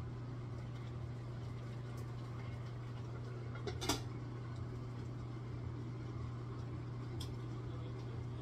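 A metal lid is set down on a cooking pan with a short clank about four seconds in, over a steady low hum.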